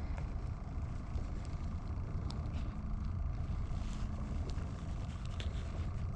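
Steady low rumble of wind on the microphone over open ice, with a few faint small clicks as a minnow head is threaded onto a jigging spoon.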